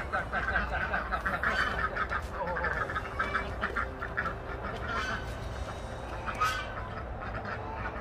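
A flock of domestic geese and ducks calling over and over in a rapid, continuous chatter, the birds clamouring while being fed small worms.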